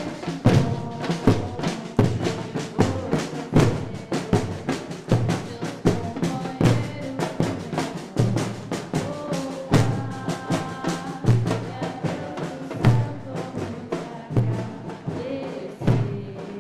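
Afro-Brazilian percussion ensemble drumming: deep bass-drum strokes land about every three-quarters of a second under dense, faster drum strikes.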